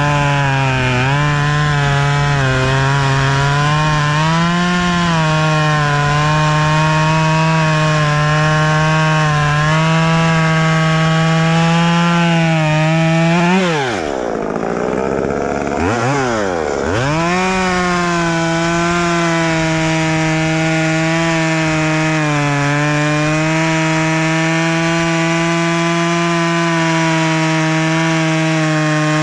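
Two-stroke chainsaw running at high revs, cutting through wood, its pitch sagging slightly under load. About halfway through, the throttle is let off twice, the revs falling and climbing back, then steady cutting resumes.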